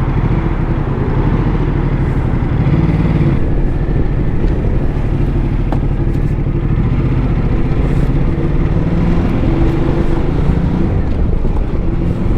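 Motorcycle engine running while riding, with its pitch rising and falling a little as the throttle changes, under steady wind and road noise.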